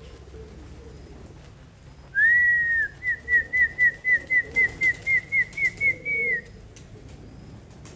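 A person whistling a call: one held note that rises at the start, then a quick run of about a dozen short repeated notes at about four a second, ending on a longer note.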